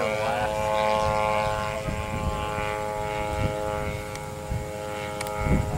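Engine of a small propeller airplane running steadily in flight, one even engine note with several overtones that grows a little fainter after about two seconds.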